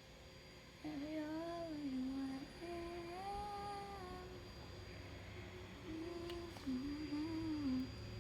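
A female voice humming a slow, wandering tune in held notes with short breaks, starting about a second in. A low steady drone comes in under it in the second half.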